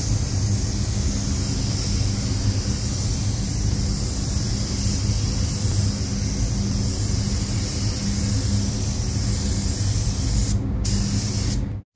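Compressed-air gravity-feed spray gun hissing steadily as it sprays primer onto a car body panel, with a steady low hum underneath. The hiss breaks briefly near the end, then cuts off abruptly.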